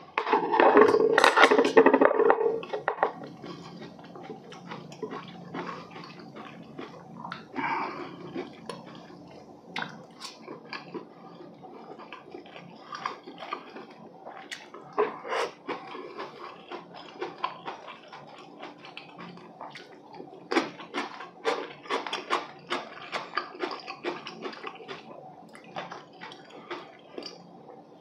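Close-miked eating of braised chicken and glass noodles: wet chewing with many short clicks of chopsticks against the dishes. There is a louder burst of noise in the first few seconds.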